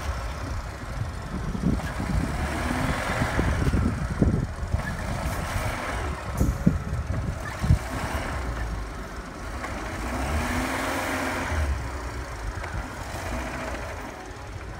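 Four-wheel-drive off-road vehicle's engine running and revving in swells as it drives through slushy snow, with a few sharp knocks about four, six and a half and eight seconds in.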